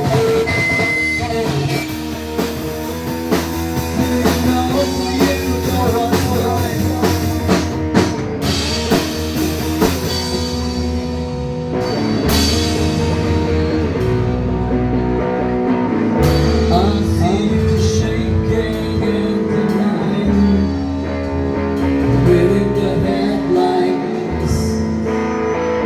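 Rock band playing an instrumental passage between sung lines, with guitars over a drum kit, and cymbal crashes about eight and twelve seconds in.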